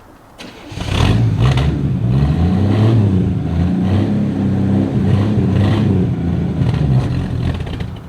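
Six-cylinder engine firing up about a second in, then running unevenly with the revs rising and falling as it is kept alive on the throttle after a reluctant, pedal-pumped start, dropping away near the end.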